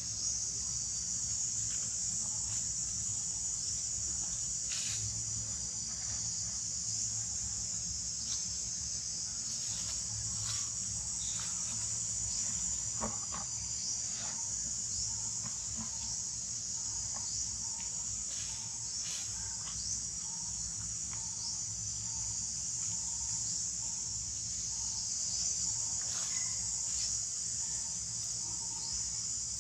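Steady high-pitched chorus of insects droning without a break, with scattered short chirps and clicks over it.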